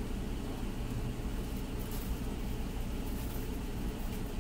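A steady low hum of background noise, with a few faint light clicks.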